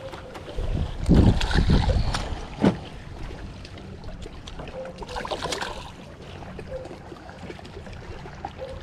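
Water splashing and sloshing at the side of a small fishing boat as a hooked bass is brought in by hand, with low wind buffeting on the microphone and a sharp knock about two and a half seconds in.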